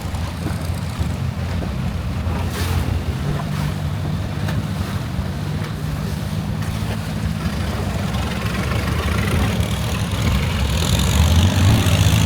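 Longtail boat engine running steadily with a low drone, growing louder near the end.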